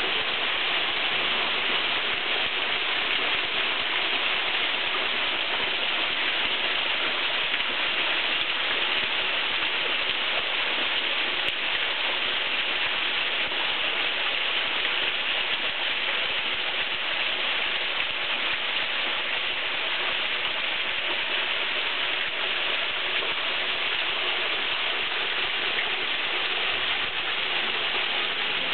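Steady rushing and splashing of Maidenhair Falls, a thin waterfall spilling down a rock face into a small pool.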